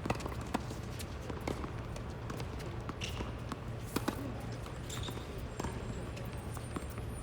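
Tennis ball impacts on an outdoor hard court, with racket hits and bounces coming irregularly, the strongest pair about four seconds in. A steady low rumble runs underneath.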